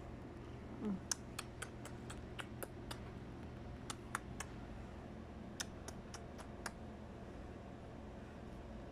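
A string of faint, sharp clicks at irregular spacing, about fifteen over some five and a half seconds, over a low steady hum. Just before the first click, about a second in, there is a brief low sound falling in pitch.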